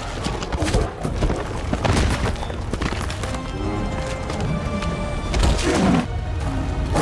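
Film score music over a wildebeest stampede: many hooves pounding on rocky ground, with deep booms.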